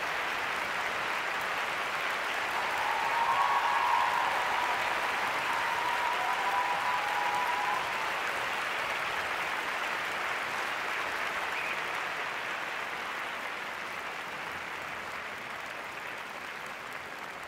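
Large arena crowd applauding steadily for a figure skater taking his bows, with a long high-pitched call rising above the clapping a few seconds in. The applause grows slightly louder early and fades slowly toward the end.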